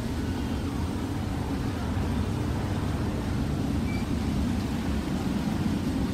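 Low, steady rumble of a Boeing 737-800 airliner's CFM56 jet engines on final approach, growing slightly louder as it comes closer.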